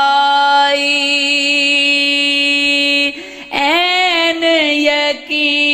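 A man singing a Punjabi Sufi manqabat: he holds one long, steady note for about three seconds at the end of a line, breaks briefly for breath, then goes into a new phrase with ornamented, wavering pitch.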